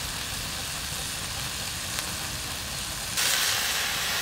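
Shredded ginger and chili sizzling in a hot wok over a low rumble. The sizzle suddenly gets louder about three seconds in, and a single sharp click comes a little before that.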